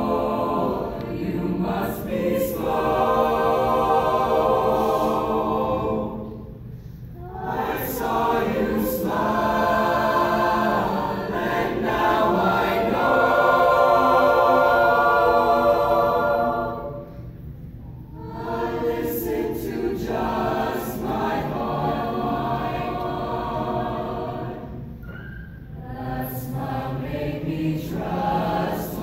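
Choir singing long, held phrases, with short breaks between phrases about a third of the way in, past the middle, and near the end.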